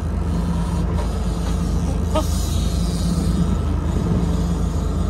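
An engine running steadily, a low even drone with no change in speed.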